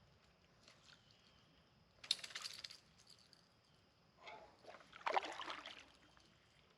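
Water splashing and sloshing at a kayak in two short bursts, about two seconds in and again around five seconds.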